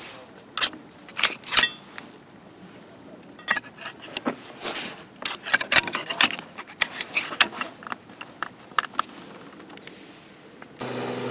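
Sharp metallic clicks and clinks of a Hurst eDRAULIC spreader's steel tips being squeezed off the arm and fitted back on: a few clicks about a second in, then a longer run of clicking and clatter from about three and a half to nine seconds in.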